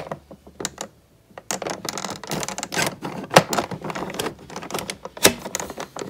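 Hard plastic clicks and scraping as a Keurig coffee maker's plastic cover plate is worked down over its mating tab, with fingers rubbing on the plastic. Two sharp clicks stand out, one near the middle and one near the end.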